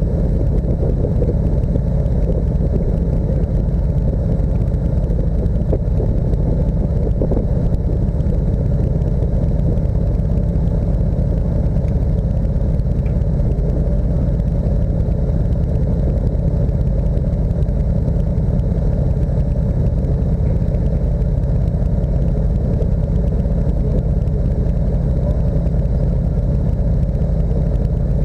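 Steady low rumble of a moving motor vehicle, its engine and road noise running evenly without a break.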